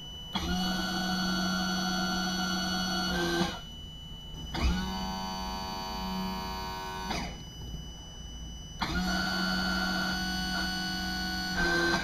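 Sterndrive electric power-trim pump motor running in three steady runs of about three seconds each, with short pauses between, as the drive is trimmed up and back down. The middle run has a different tone from the first and last.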